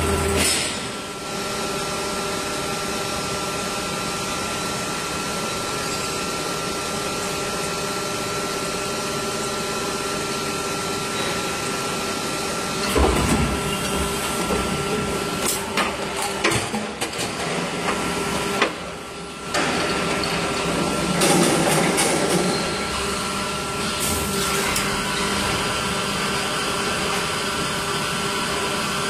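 Injection moulding machine running a six-cavity PET preform mould through a cycle: a steady machine hum with a constant whine. About halfway through, louder surges and a run of short knocks come as the mould opens and closes, and then the steady hum carries on.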